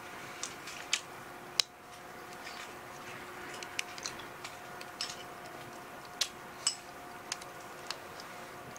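Chopsticks clicking against a ceramic bowl: about ten light, irregular clicks over a faint steady hum.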